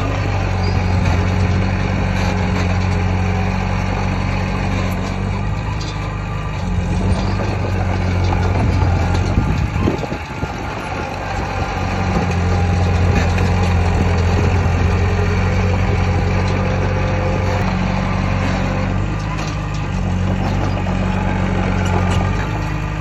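Heavy diesel engine of earthmoving machinery running steadily. Its low engine note fades briefly about ten seconds in, then comes back.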